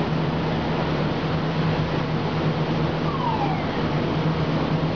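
VIGAN NIV pneumatic grain conveyor running steadily while grain pours from its spout into a truck trailer: a constant rushing noise over a low hum. A brief falling whistle sounds about three seconds in.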